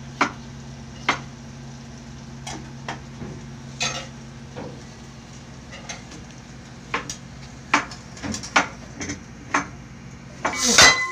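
Kitchen knife chopping tomatoes on a round wooden chopping board: irregular knocks of the blade on the wood, coming faster about two-thirds of the way in, over a steady low hum. Near the end a loud rush of noise takes over.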